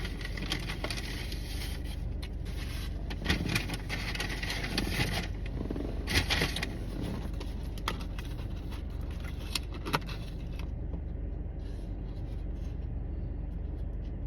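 Fast-food packaging rustling and crackling in scattered bursts as the burger is unwrapped, settling down about ten seconds in, over a steady low hum.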